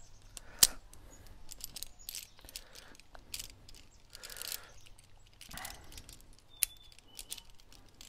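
Climbing carabiners clicking and clinking together as they are worked loose and unclipped from a carabiner rappel setup on a harness, with the sharpest click about half a second in. Soft rustles come between the clicks.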